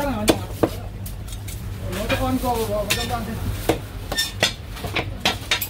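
Meat cleaver chopping crispy roast pork on a wooden chopping block: two sharp chops just after the start, then a quick run of strikes in the last two seconds.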